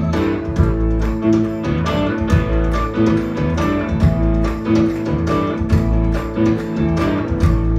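Live Tuareg desert-blues band playing: interlocking electric guitar lines and bass over a steady percussion beat of about four hits a second.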